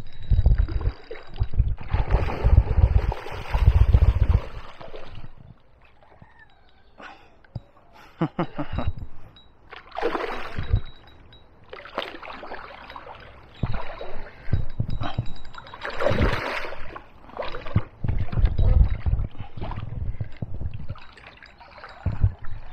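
A hooked pike splashing at the surface in repeated bursts as it is played in against the bank, with wind buffeting the microphone.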